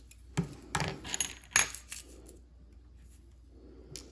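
A handful of sharp, light metallic clicks and taps in the first two seconds, loudest about a second and a half in: tweezers and small steel watch parts being handled and set down on the bench mat during strip-down of a watch movement. Soft handling rustle follows.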